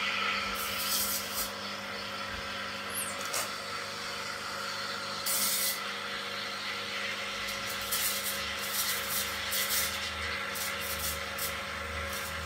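Isomac Maya espresso machine humming steadily as an espresso shot is pulled, with a few short hisses and light clicks along the way.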